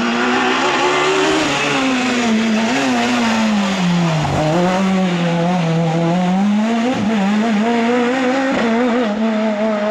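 Peugeot 206 S1600 rally car's naturally aspirated 1.6-litre four-cylinder engine running at high revs as the car comes up, passes close and pulls away. The engine pitch falls as it passes about four seconds in, then rises again as it accelerates off.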